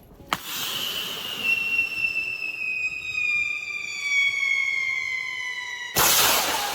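Whistling firework: a sharp pop at launch, then a long high whistle that slowly falls in pitch for about five seconds, cut off by a loud bang near the end.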